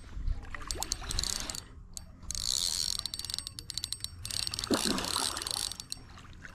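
Spinning reel's drag ratcheting in fast clicks as a hooked hybrid bass pulls line off, coming in several bursts with brief pauses between them.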